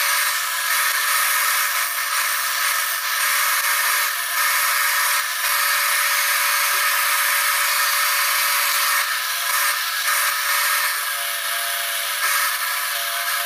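Disc sander running steadily with a whine, while a small piece of wood is pressed against the spinning abrasive disc, giving a continuous sanding hiss that dips briefly a few times.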